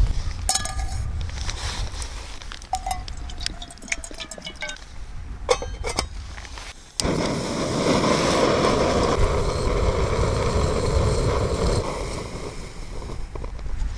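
Metal clinks and light knocks as a small gas canister stove and a metal cooking pot are set up, some ringing briefly. About seven seconds in, the stove's gas burner comes on with a sudden steady hiss that eases a little near the end.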